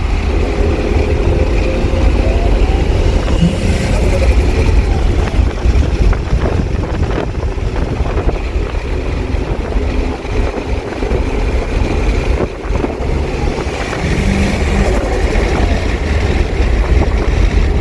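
A turbocharged Holden VL's engine running with a steady, loud low rumble.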